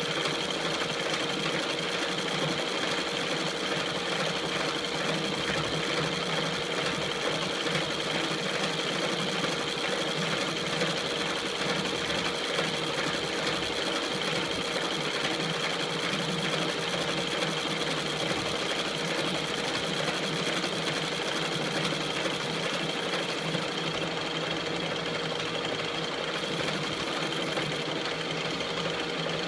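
KART E1N metal lathe running steadily, with a constant high whine over its motor and gear noise.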